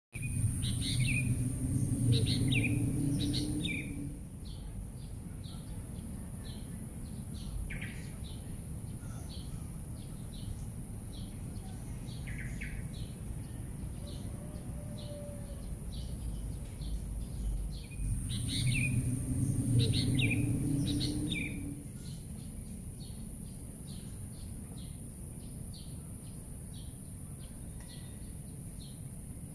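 Small birds chirping in short, scattered calls over a steady high-pitched hiss. A louder low rumble lasts about four seconds at the start and comes back about 18 seconds in.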